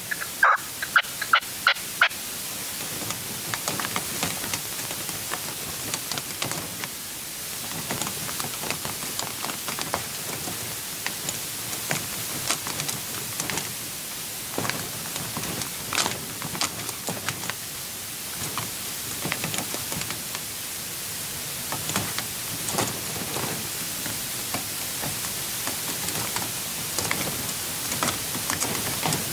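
Red-legged partridge call bird (reclamo) calling: a quick run of loud, clipped notes, about three or four a second, over the first two seconds, then softer, scattered calls and clicks over a steady hiss.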